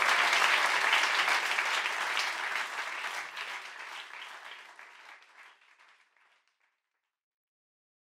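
Audience applauding, fading away steadily over the second half until it is gone.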